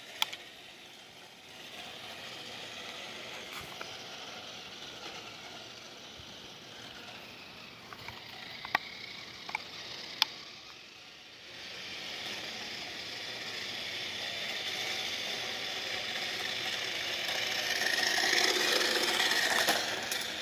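Small electric motor and gears of a toy Dodge Charger SRT Hellcat RC car whirring as it drives. It drops away briefly near the middle, with a few sharp clicks, then builds and is loudest near the end.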